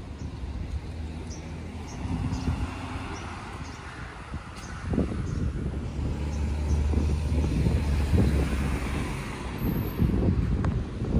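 Road traffic: a vehicle passing, its noise swelling from about halfway through and easing near the end, with wind buffeting the microphone.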